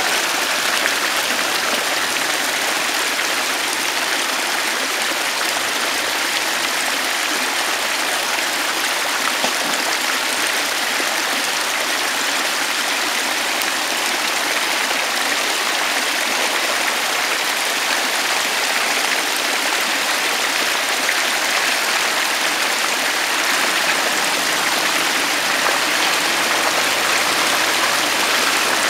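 Steady rushing of flowing water, like a fast stream, throughout. Near the end the low hum of the approaching Land Rover Discovery's diesel engine comes in faintly under it.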